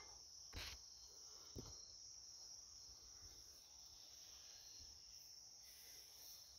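Near silence with a steady high-pitched insect drone, of crickets, in the background. Two faint knocks come about half a second and a second and a half in.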